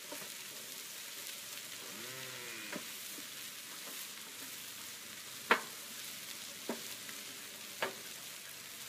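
Tater tots and burgers frying in bacon fat on a hot Blackstone flat-top griddle, with a steady sizzle. A metal spatula scrapes and clacks against the steel cooktop, with sharp clacks about five and a half and eight seconds in.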